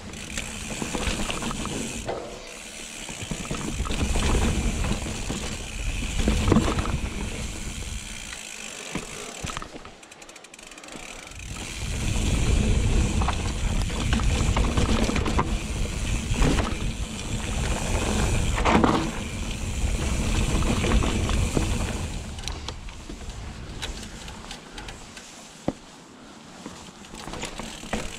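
Steel hardtail mountain bike ridden along a dirt singletrack: tyres rumbling over the trail, with chain and frame rattling over bumps, swelling louder and quieter in stretches of a few seconds. The Hope Pro 4 rear hub's freehub buzzes in between while coasting.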